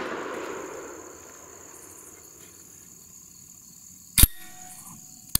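The echo of a Beretta 1301 Tactical 12-gauge shotgun shot dies away over about a second and a half. A steady high trill of crickets runs underneath. A sharp click comes about four seconds in and another near the end.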